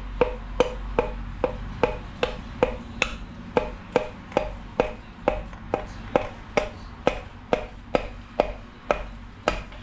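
Steady, even light taps, about two and a half a second, driving a YCP piston down its cylinder bore in a Honda D16A block until its connecting rod seats on the crankshaft. The tapping stops near the end.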